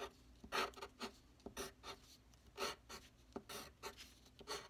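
Pencil scratching on paper in a series of short, quick strokes while sketching small tree outlines.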